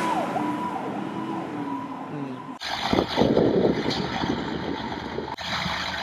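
Fire engine's electronic siren yelping in quick falling sweeps, fading away within about a second as the engine drives off. About two and a half seconds in, the sound cuts off abruptly and a louder, rough noise takes its place.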